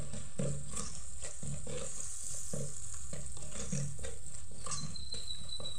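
A spoon stirring thick chilli masala in oil in a clay pot, scraping about twice a second, with the oil sizzling underneath.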